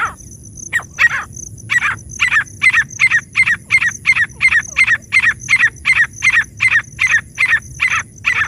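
Francolin (teetar) call, loud and repeated: a couple of spaced notes, then a fast run of short, sharp calls at about three a second. This is the kind of call played to lure wild partridges.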